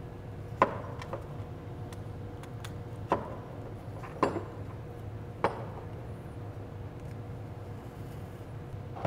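A handful of short, sharp clicks and knocks, about a second apart over the first half or so, as a greased bushing insert is pushed into a rubber-and-steel transmission mount held in the hands. A steady low hum runs underneath.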